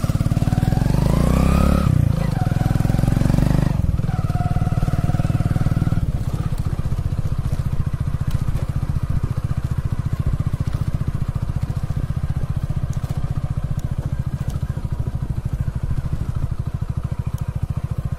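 Motorcycle engine running while riding along a dirt road, heard from on the bike: a steady drone with a fast, even beat, its pitch rising and falling in the first few seconds.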